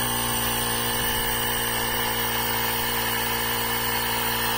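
Portable battery-powered jump starter's built-in air compressor running steadily, pumping up a car tire to a set pressure of 35 psi.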